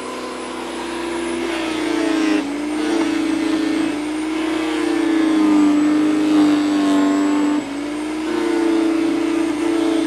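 Powersmart PS10 electric chipper shredder running, its motor hum dropping in pitch and getting louder as branches are fed in and chewed, picking back up for a moment about three-quarters through before bogging down again under the load.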